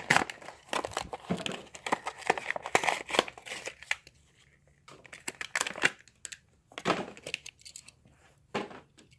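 A plastic blister pack and its cardboard backing card being torn open by hand to free a die-cast toy car, with crackly crinkling and tearing. The tearing is dense for about four seconds, then comes in a few short bursts.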